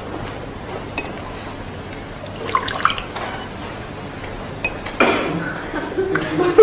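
Sherry poured from a decanter into small glasses, with light clinks of glass on glass. A broader swell of audience laughter rises near the end.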